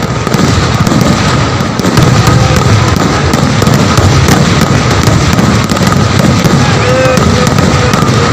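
Vedikettu fireworks barrage going off without a break: a rapid, dense string of bangs and crackling that merges into one continuous rumble.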